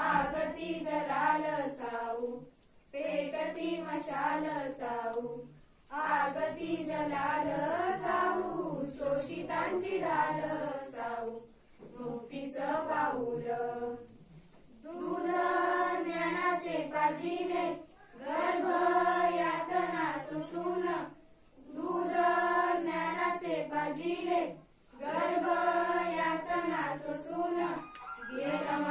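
A group of schoolgirls singing a Marathi awareness song (prabodhan geet) together, unaccompanied. The song comes in phrases of two to four seconds, with short breaks between them.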